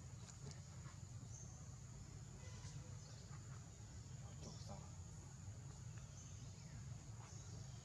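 Faint forest ambience: insects making a steady high-pitched drone over a low rumble, with a few faint short chirps and ticks.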